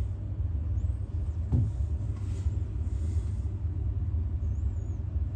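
Steady low outdoor rumble, with a brief falling low sound about a second and a half in.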